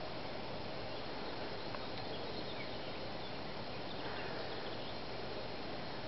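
Steady outdoor background hiss with a few faint, short bird calls.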